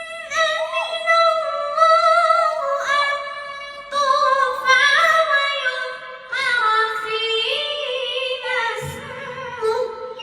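Melodic Quran recitation (tajwid chanting) by a single high voice, holding long notes that step and waver in ornamented turns, with short breaths between phrases.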